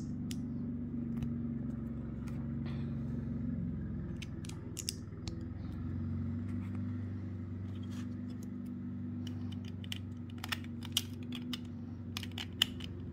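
Plastic Lego bricks clicking and rattling as they are handled, picked from a plastic tray and pressed together, in scattered clusters of small clicks. A steady low hum runs underneath.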